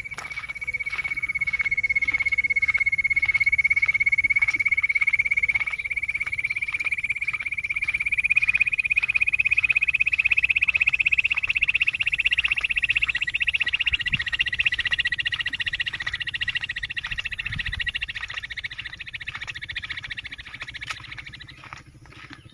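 A loud, continuous, rapidly pulsed high trill that creeps slightly upward in pitch, swelling in at the start and fading away near the end.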